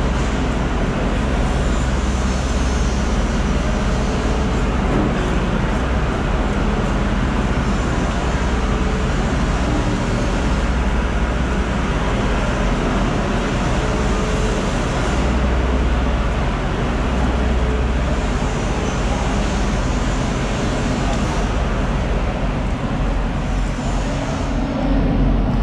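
Steady din of a busy fish market floor: a constant low rumble and hiss, with faint voices in the mix.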